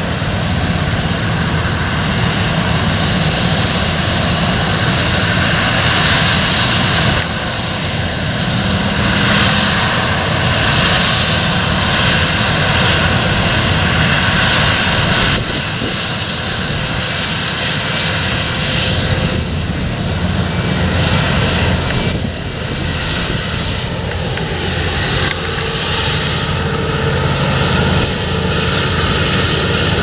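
Claas Lexion 770 combine harvester cutting wheat at close range: its engine and threshing machinery running steadily under load.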